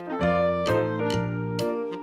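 Background music for children: a bright keyboard tune over a bass line, with a steady beat of percussive hits.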